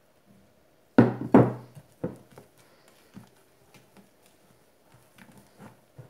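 Glass mixing bowl set down on a kitchen worktop: two loud knocks about a second in, followed by a few lighter knocks and taps.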